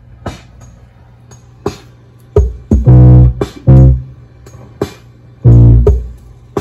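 Home electronic organ, about 1980 vintage, played with a few loud, low held notes over its built-in rhythm unit ticking out a drum-machine beat.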